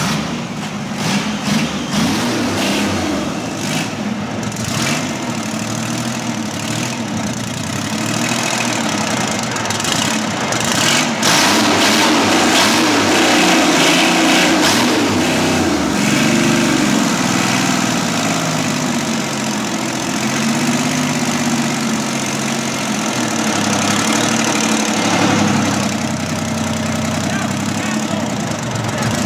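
Detroit Diesel 12V71, a two-stroke V12 diesel, running just after a cold start. Its speed rises and falls several times, with a louder, higher-revving spell about halfway through.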